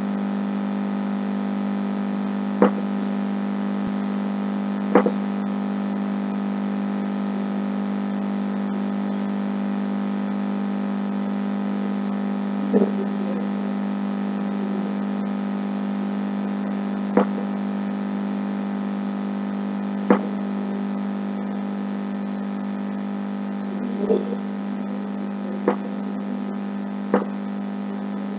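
Steady electrical hum with many overtones, picked up by the recording microphone. About eight short sharp clicks are scattered through it, from a computer mouse.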